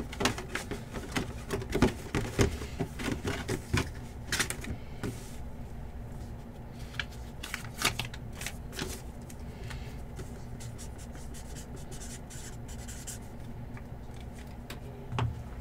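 Hands handling a cardboard box and its packaging on a table: scattered taps, rubs and rustles, busy for the first few seconds and then sparse, with one soft thump near the end.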